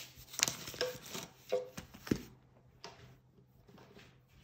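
A plastic-wrapped rolled diamond-painting canvas being pulled out of its packaging tube and handled on a stone countertop: crinkly rustles and scrapes, and a soft knock about two seconds in, then faint handling.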